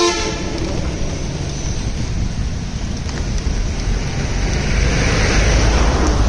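Wind buffeting the microphone outdoors: a loud, steady low rumble, with a short pitched tone at the very start and a louder hiss swelling about five seconds in.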